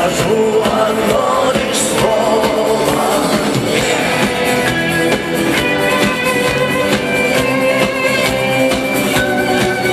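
Rock band playing a song, with electric guitar over a steady drum beat, in a stretch without sung words.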